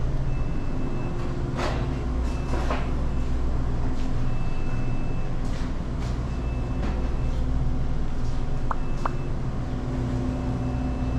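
Steady low hum of a convenience store's refrigerated drink coolers and air handling, with a few faint short rustles or clicks scattered through it.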